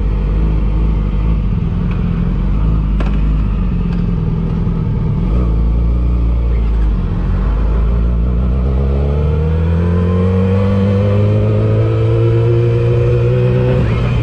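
Motorcycle engine running at a steady speed, then rising steadily in pitch from about eight seconds in as the bike accelerates.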